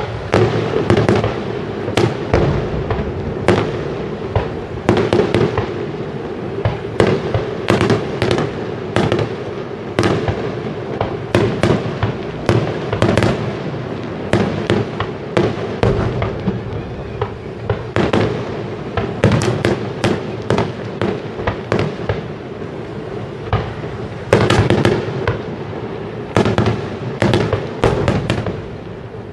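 Aerial firework shells bursting in quick succession: a dense run of sharp bangs, several a second at times, over a continuous rumbling haze.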